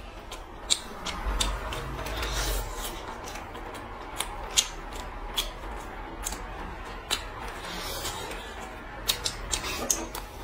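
Close eating sounds of braised pork rib being bitten and chewed off the bone by hand: wet mouth smacks and clicks, irregular, several a second.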